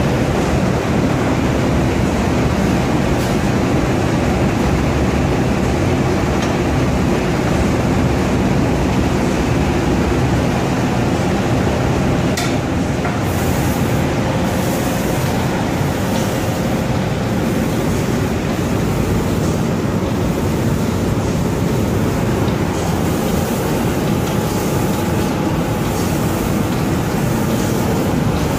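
Automatic spray-painting machine for wooden doors running: a loud, steady rush of machinery and air that holds the same level throughout.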